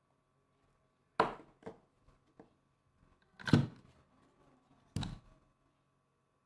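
A few sharp clicks and knocks, irregularly spaced, with the loudest about halfway through.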